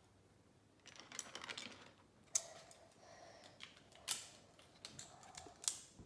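Plastic Lego pieces being handled and pressed together: a soft rustle about a second in, then a few scattered sharp clicks.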